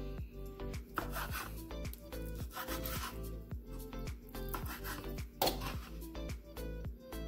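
Kitchen knife slicing boiled chicken gizzards on a wooden cutting board: repeated short rasping cuts and taps of the blade on the board, with one louder knock about five and a half seconds in. Background music plays throughout.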